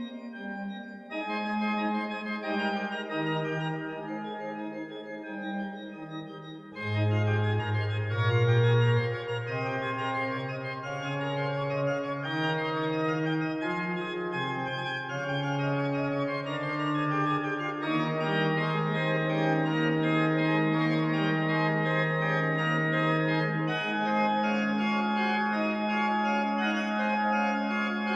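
Organ playing slow, held chords; deep bass notes come in about seven seconds in and the music grows louder.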